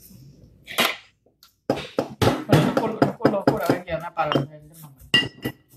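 A single sharp crack about a second in, from a cooked lobster's shell being broken apart by hand, followed by a man talking for most of the rest.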